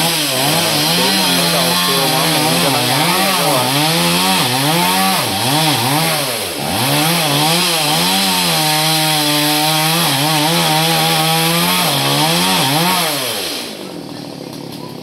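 Two-stroke chainsaw cutting into a coconut palm, its engine revving up and down about once a second as the cut goes on. It holds a steady high pitch for a few seconds past the middle, then drops away about a second and a half before the end.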